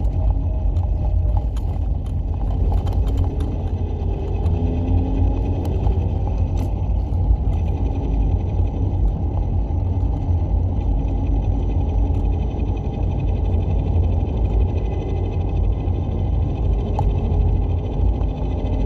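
Lifan X60 driving under load, with a steady low road-and-drivetrain rumble and a faint hum from the manual gearbox that drifts up and down in pitch. This is the noise that came on under load from second to fourth gear above about 40 km/h. The owner cured it by replacing the clutch assembly and a gearbox bearing, and he takes rubbing clutch-disc springs for the likely cause.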